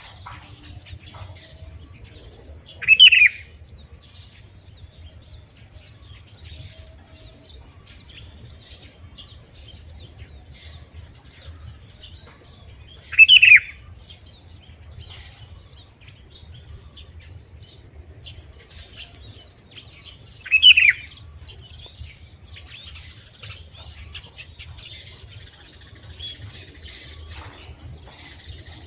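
A sooty-headed bulbul, the trained decoy used to lure wild bulbuls, gives three loud short calls about ten and seven seconds apart. A steady high insect drone runs throughout, with faint chirps of other birds.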